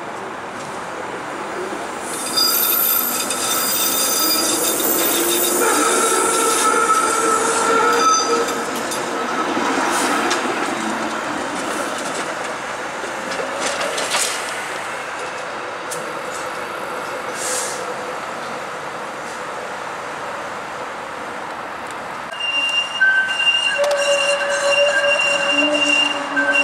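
Toronto streetcar steel wheels squealing on the tight curves of a turning loop: a high, steady squeal of several tones from about two seconds in to about eight seconds, then wheels rumbling on the rails, and a new squeal starting near the end.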